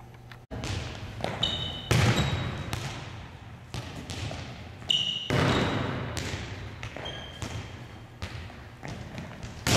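Volleyballs being struck during passing and setting drills on a wooden gym floor: sharp slaps of the ball roughly every second, echoing in the hall, with brief sneaker squeaks in between.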